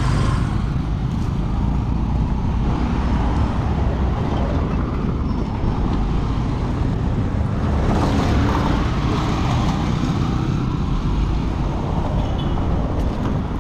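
Steady road traffic noise: motor vehicles running along the road, with a continuous low rumble.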